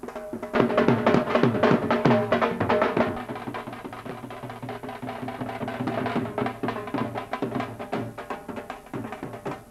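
Dhol drum beaten in a fast, busy rhythm, loudest for the first two or three seconds, then a little quieter.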